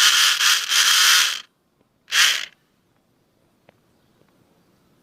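A small electric motor whirring, stopping suddenly about a second and a half in, then a second short whirr of about half a second, followed by faint ticks.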